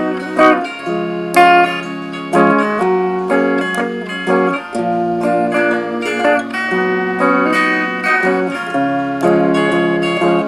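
Guitar music: plucked notes and chords, each starting sharply and ringing on.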